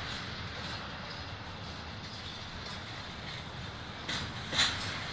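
Double-stack intermodal freight train of well cars rolling past: a steady rumble of wheels on the rails, with two sharp clanks about four seconds in, the second the loudest.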